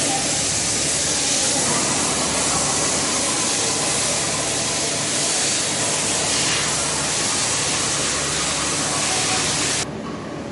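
Steady, loud hissing noise of a welding workshop floor. It drops off abruptly a little before the end.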